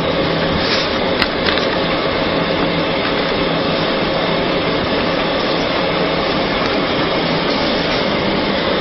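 Steady machine noise with a constant hum, from running equipment such as a fan, with a couple of light clicks about a second in.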